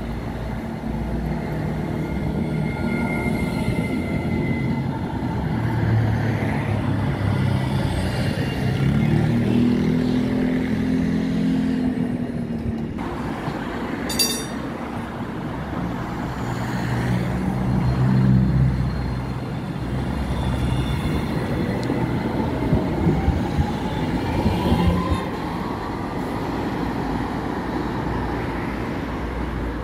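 RET low-floor electric tram running on its rails through a tram stop, with low rumbling and pitched motor tones. Later comes an electric whine rising in pitch as a tram pulls away.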